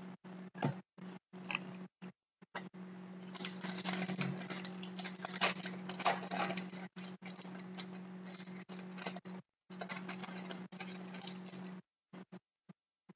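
Foil wrapper of an Upper Deck hockey card pack crinkling as it is torn open and emptied by hand, with the cards rustling; the crinkling is busiest from about three seconds in until near the end. A steady low hum runs underneath, cutting in and out.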